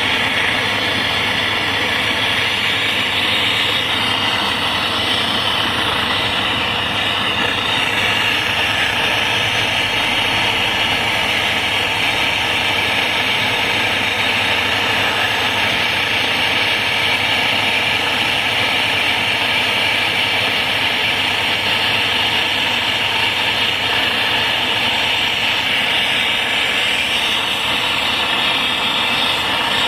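Brazing torch flame burning with a steady, loud hiss, unbroken throughout.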